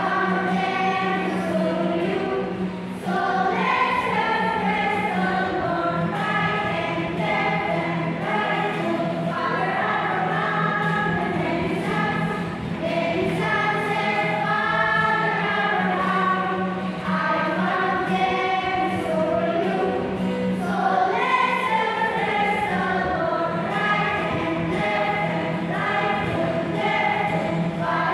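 A group of children singing a song together as a choir, with a steady low hum running beneath the voices.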